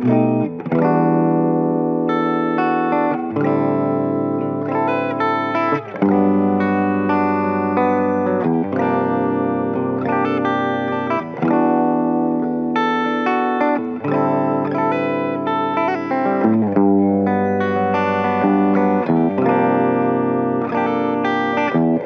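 2018 Gibson SG Special electric guitar played with a pick over a backing track, the bass and chords changing about every two to three seconds.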